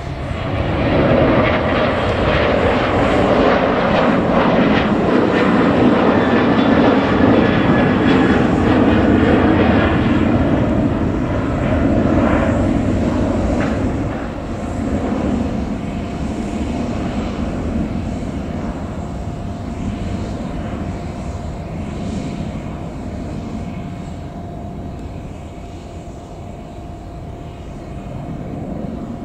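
Boeing 737-800's twin CFM56-7B turbofan engines at takeoff thrust as the jet climbs out: a loud roar with a steady whining tone, strongest in the first half and then fading gradually as the aircraft draws away.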